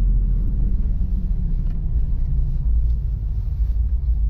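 Steady low engine and road rumble inside the cabin of a UAZ Patriot on mud-terrain tyres, its 2.7-litre ZMZ-409 four-cylinder petrol engine running.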